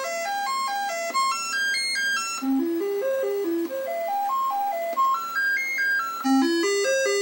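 Commodore 64 SID sound chip playing the diagnostic cartridge's SID test tune: a quick run of stepped electronic beeping notes climbing and then falling, repeating about every four seconds.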